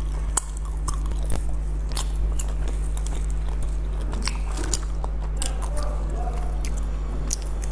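Close-miked eating of a soft, sticky green glutinous rice cake filled with salted egg yolk and pork floss: biting and chewing, with many short wet mouth clicks and smacks. A steady low hum runs underneath.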